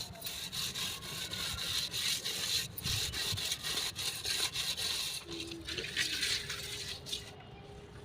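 Rough scraping strokes repeated in quick succession, like something hard being rubbed or scraped over a rough surface, fading near the end.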